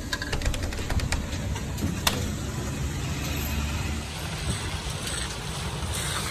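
City bus engine rumbling inside the cabin, with a few sharp clicks and rattles in the first two seconds. About four seconds in, it gives way to steadier street noise.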